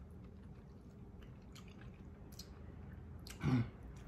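Wet, close-up chewing and biting of cooked lobster meat, with small smacking clicks and one short, louder mouth sound about three and a half seconds in.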